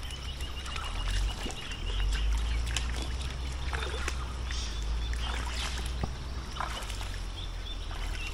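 People wading through a shallow creek, water splashing and sloshing around their legs with each step, over a steady low rumble on the microphone. A thin steady high tone runs for the first three seconds or so.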